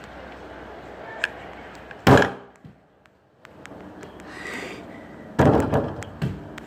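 Two loud thumps about three seconds apart, with lighter knocks and rustling between them.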